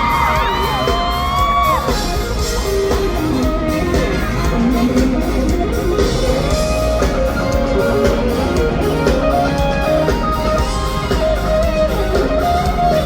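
Live pop-rock band playing an instrumental break, with an electric guitar playing a lead melody over drums and bass.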